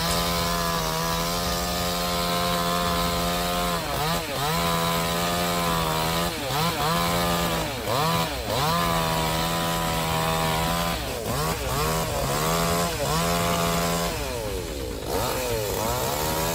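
Chainsaw running at high revs, its engine note steady for stretches and dipping and climbing back up about five times.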